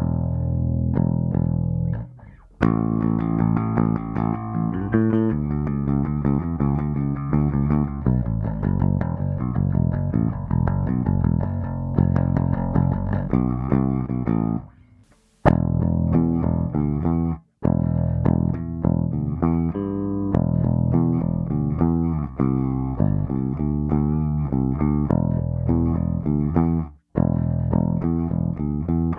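Gibson Les Paul Standard electric bass (2011) played solo: a run of plucked notes and riffs with a few short breaks, the longest about halfway through.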